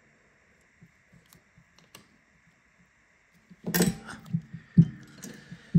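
Small hard clicks and clatter of phone parts and repair tools being handled on a workbench: a few faint taps, then a denser run of clicks and knocks from about three and a half seconds in, with a sharp knock just before the end.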